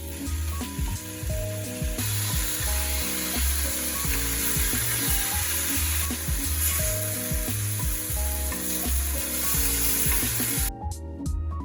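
Food sizzling in a hot pan, a steady frying hiss over soft background music with a bass line. The sizzle cuts off suddenly near the end, leaving only the music.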